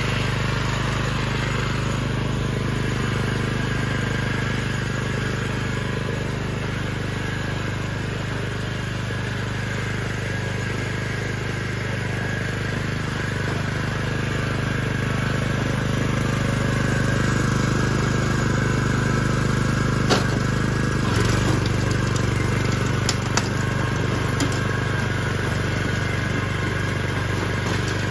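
Agria single-axle walking tractor's engine running steadily while its rotary tiller works the soil. A few brief sharp knocks come about two-thirds of the way through.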